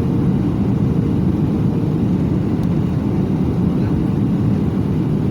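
Airliner cabin noise: a steady low roar of jet engines and rushing air, with a faint steady hum underneath.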